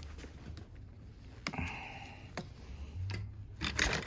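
Light clicks and taps of vacuum hose parts being handled, with a short scraping rustle about a second and a half in and a quick run of louder clicks near the end.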